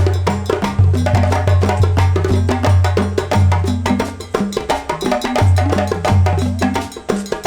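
Background music with a steady percussive beat, clicking wood-block-like hits and a deep bass line.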